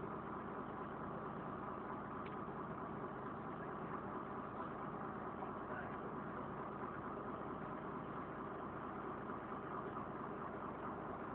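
Engine of a DAF DB250LF double-decker bus running steadily with no change in pitch, heard from inside the lower saloon.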